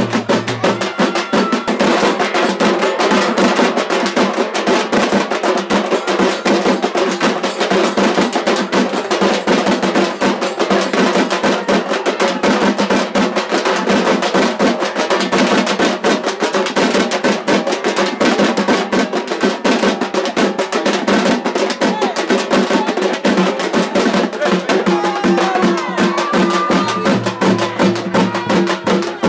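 Loud, fast drumming on ceremonial drums: a dense, unbroken run of rapid beats that keeps going without a pause.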